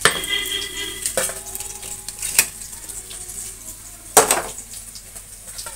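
Stainless-steel cooking pot and utensils clanking against each other and the counter, each clank followed by a short metallic ring, with the loudest clatter about four seconds in. Onions frying in oil sizzle faintly and steadily underneath.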